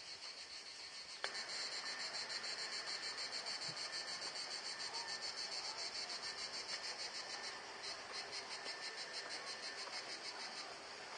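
Cicadas buzzing in a dense, high-pitched chorus with a rapid, even pulse. There is a click about a second in, after which the chorus is louder, and it eases a little about two-thirds of the way through.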